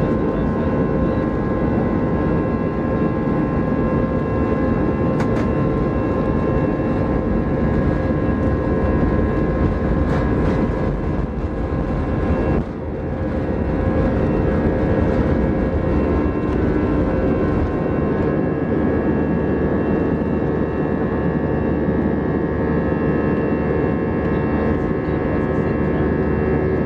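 Airliner's jet engines at takeoff thrust heard inside the cabin: a steady, loud rush of noise with several held tones, over rumble from the wheels on the runway. About 18 seconds in, the lowest rumble fades as the wheels leave the ground.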